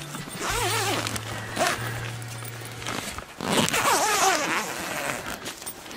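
Double-slider zipper on an ice-fishing tent's fabric door pulled along its length twice, once to unzip and once to zip, each a long rasping run of about two and a half seconds.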